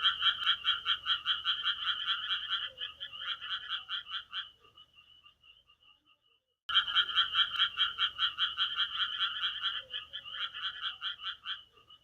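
Frogs croaking in fast pulsed calls, about five a second, in two loud bouts of several seconds each. Each bout trails off into a few faint calls, and there is a short silence between them about six seconds in.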